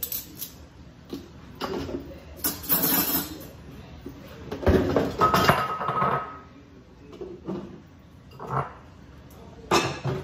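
Metal cutlery and dishes clinking and clattering in irregular bursts as they are handled and set down, with one piece ringing briefly about halfway through.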